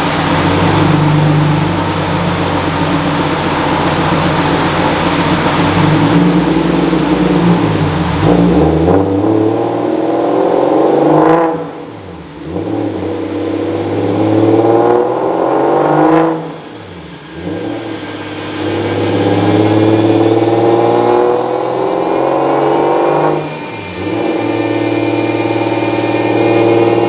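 BMW 335i's turbocharged inline-six running hard on a chassis dyno. The engine note climbs in pitch and drops off sharply three times, over a steady whir.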